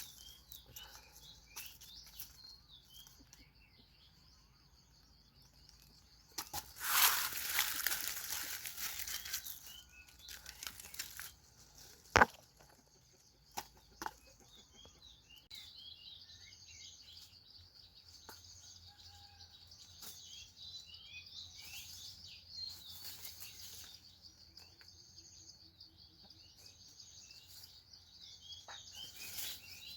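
Birds chirping over a steady high-pitched drone, with a loud rustle lasting about three seconds starting around six seconds in, then a sharp snap and a couple of lighter clicks.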